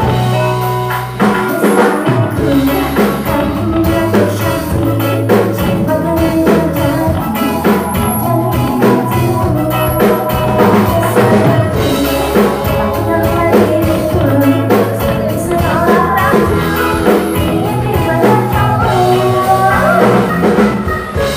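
Live band music: a woman singing a pop song into a microphone over electric guitar, bass guitar, keyboard and drum kit, played loud and without a break.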